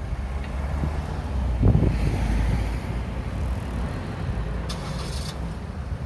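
Road traffic passing through a crossroads: a low rumble of vehicles, with one passing loudest about two seconds in, and a brief hiss about five seconds in.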